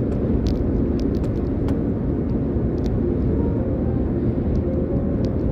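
Steady road and engine noise of a car driving at speed on an expressway, heard from inside the moving car, with a few faint ticks.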